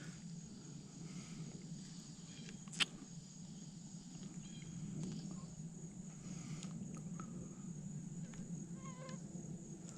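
Faint outdoor background of insects droning steadily on one high note, with a single sharp click a little under three seconds in.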